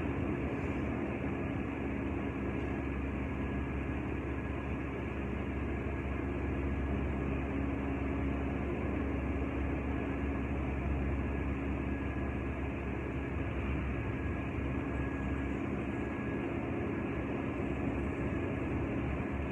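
Steady mechanical hum and rush of air from a large fan running, with a constant low tone and no bangs or knocks.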